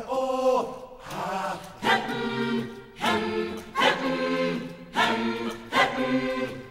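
Background vocal music: a choir of voices chanting in short repeated phrases, about one a second.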